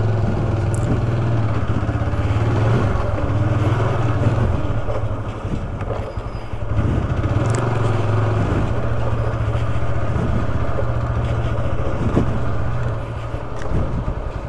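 Motorcycle engine running at low road speed, easing off briefly about five seconds in and again near the end, with a few knocks and rattles from the bike.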